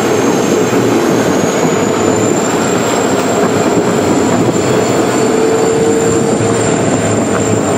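Alaska Railroad passenger train running on a curve: a loud, steady rumble of wheels on rails with a thin high-pitched wheel squeal throughout, and a lower squeal tone joining in about five seconds in.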